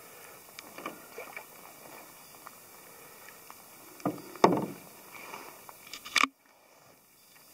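Canoe paddling on a still pond: a few paddle strokes swish through the water over a faint steady hiss, and a sharp knock about four and a half seconds in is the loudest sound. The sound cuts off suddenly just after six seconds.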